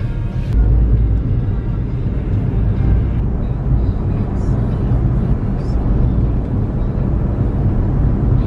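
Loud, steady low rumble with a hiss over it. A music track ends about half a second in.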